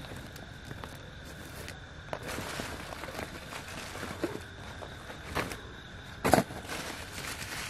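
Rustling of a plastic bag being rummaged through by hand, with a few sharp clicks and knocks as things are handled, the loudest about six seconds in.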